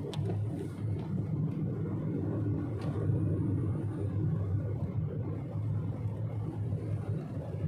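Car driving on a wet road, heard from inside the cabin: a steady low rumble of engine and tyres, with a faint click or two.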